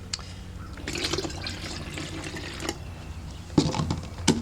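Two stainless steel puck padlocks shaken in a container of water, the water sloshing and splashing. Near the end come two sharp knocks, the loudest sounds here.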